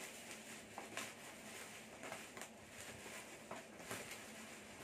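Faint crinkling and rustling of a black plastic courier mailer being cut with scissors and torn open by hand, with a few short crackles spread through.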